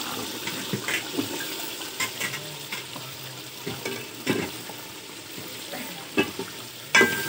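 Chicken and potatoes sizzling as they fry in an aluminium pot, stirred with a steel ladle that knocks and scrapes against the pot several times; the loudest knock, near the end, rings briefly.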